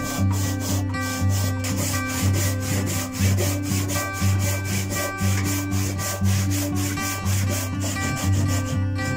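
Wooden-handled handsaw cutting through oak in quick, even strokes, with a rasping rub on each pass of the teeth. Acoustic guitar music plays underneath.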